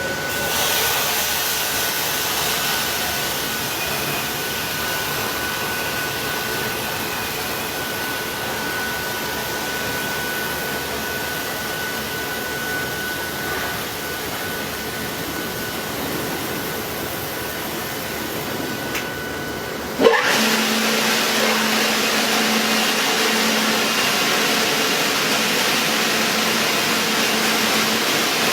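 Steady whirring machine noise, like a motor or blower running. About 20 seconds in, a sharp click and a change to a somewhat louder steady whir with a low hum.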